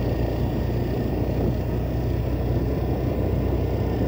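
Steady low rumble of a motorcycle on the move: engine, tyre and wind noise, with no change in pace.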